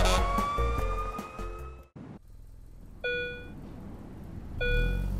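A cartoon fire engine's siren wailing with a slow rising pitch over background music, fading away within the first two seconds. After a brief silence, two short chime-like tones sound about a second and a half apart.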